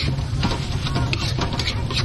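Metal spatula scraping and clinking against an aluminium wok as a bean-sprout filling is stirred and tossed, in quick irregular strokes. A steady low hum runs underneath.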